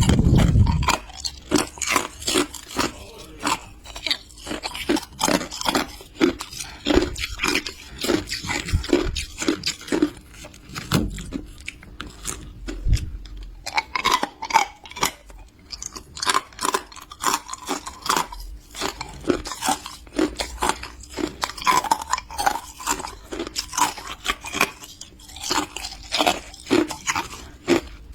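A person biting and chewing hard, clear ice close to the microphone: dense, irregular crunching and cracking, several crunches a second, with a few deep thuds, the loudest at the very start.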